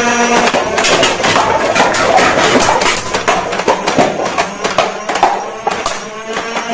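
A toy gun firing a rapid, irregular string of sharp clicking shots. A steady held electronic tone cuts off about half a second in.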